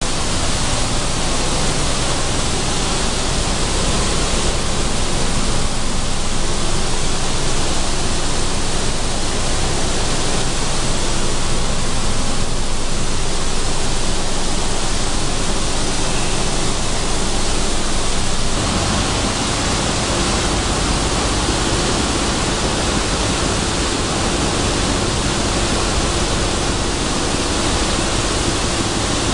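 Sunflower seed hulling machine running: a loud, steady, dense rushing noise. A little past the middle it shifts slightly, dropping a touch and taking on a faint hum.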